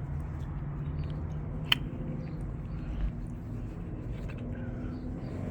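A steady low mechanical hum, with one sharp click about two seconds in and a soft thump about a second later.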